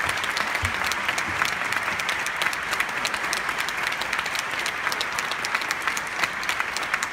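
Audience applauding steadily: many hands clapping together in a dense, continuous patter.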